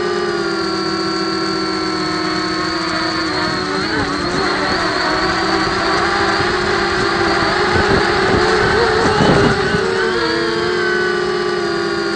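Blade 200QX quadcopter's brushless motors and propellers whining steadily, heard from its onboard camera. From about three seconds in the pitch wavers and splits as the motors speed up and slow down unevenly, a little louder shortly before ten seconds, then settles back to a steady whine.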